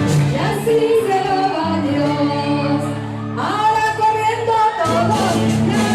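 Voices singing a song with instrumental accompaniment, with a long held chord about two seconds in that lasts about three seconds.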